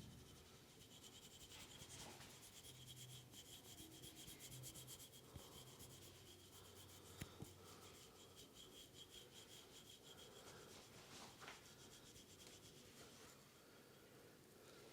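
Faint rubbing of hands over skin and hair during a massage, with a sharp little click about seven seconds in.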